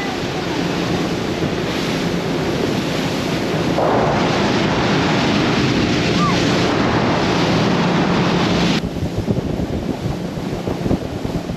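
Motorboat running at speed: wind buffeting the microphone and rushing water from the hull, over a steady outboard engine hum. The rushing noise drops off abruptly about nine seconds in.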